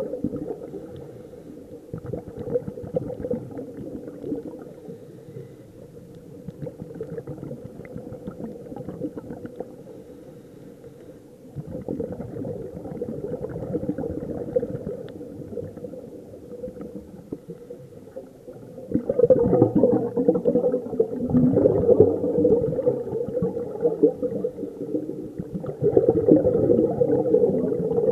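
Scuba diving underwater, heard muffled through the camera's housing: a steady dull gurgle of regulator breathing and exhaled bubbles, with louder bubbling bouts in the last third.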